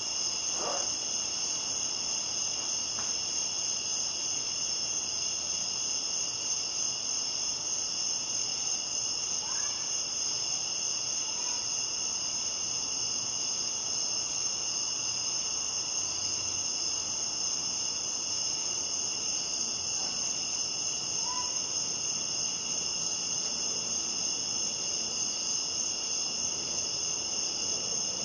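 A steady nighttime chorus of crickets trilling, with a few faint, brief calls over it.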